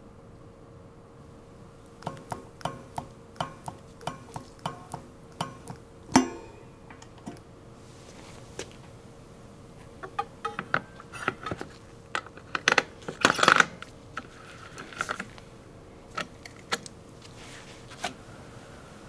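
Metal clicks and clacks of bicycle repair work on a mountain bike's disc-brake rotor and front wheel. A run of evenly spaced light clicks, about three a second, starts about two seconds in, followed by a single loud metallic clack that rings on briefly. From about ten seconds in comes a busier clatter with a longer scraping rattle as the wheel is refitted in the fork, then a few lone clicks near the end.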